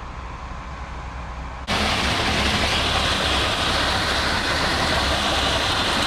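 Concrete pump truck's engine running steadily while it pumps concrete through the boom hose into wall forms: faint at first, then about two seconds in much louder and closer, a low rumble under a steady hiss.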